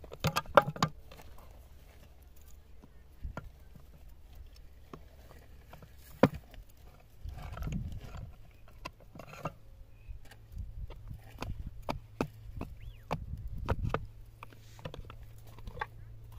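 Scattered sharp knocks and clicks, the loudest in the first second and about six seconds in, over a low rumble.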